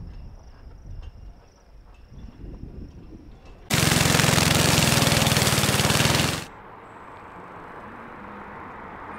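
A walk-behind brush mower's small engine running loud as it cuts through tall dry grass. It starts abruptly about four seconds in, lasts about three seconds and stops abruptly. Before it there is only a faint low rumble with a thin high tone, and after it a softer steady hiss.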